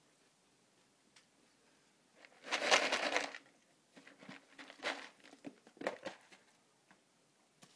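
Clear plastic snap-lid food tub of dry roasted peanuts being handled and its lid pried open. A loud rattling, crackling burst lasts about a second, starting about two and a half seconds in, followed by several sharp plastic clicks and crackles.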